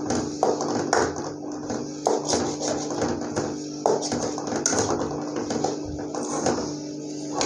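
A metal spoon scrapes and clacks irregularly against an aluminium karahi as thick keema filling is stirred and turned. A steady low hum runs underneath.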